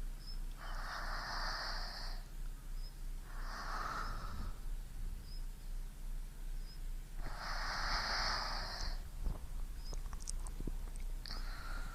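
A person breathing close to binaural microphones: three slow, noisy breaths of about a second each, separated by pauses of a couple of seconds.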